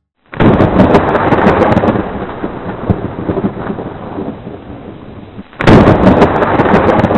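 Thunder sound effect: two loud peals. The first breaks sharply just after the start and dies away over about five seconds, and the second breaks in near the end.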